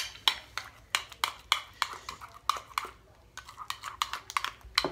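A utensil stirring thick sour cream and spices in a small ceramic bowl, clicking against the bowl's side in a quick rhythm of about four clicks a second.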